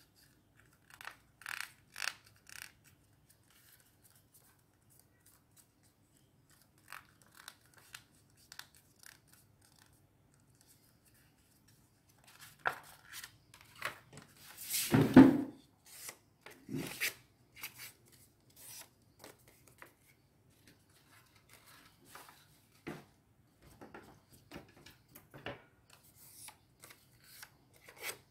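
Yellow paper being handled and folded by hand: scattered short rustles, creases and crinkles with quiet gaps between them, the loudest a longer rustle about halfway through.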